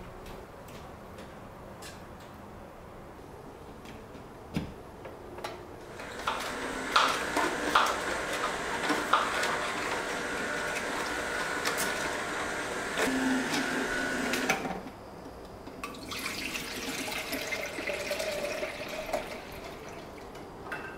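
Water running from a tap into a sink or container, in a stretch of about eight seconds with a few clinks, then a shorter, slightly quieter stretch.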